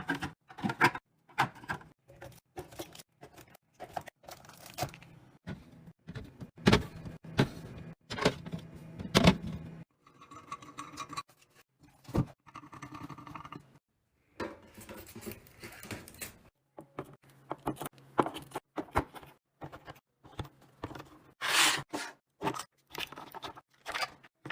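Items being handled and set down during fridge or pantry restocking: a steady run of clicks, knocks, taps and rattles from containers and packaging, broken by a few short silences.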